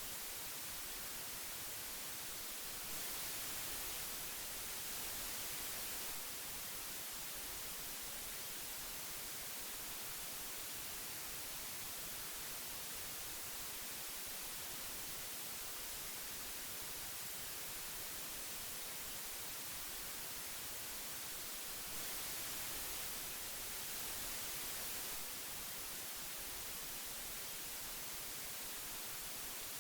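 Old analog tape hiss: a steady, even hiss weighted toward the high end, swelling slightly louder twice for about three seconds each.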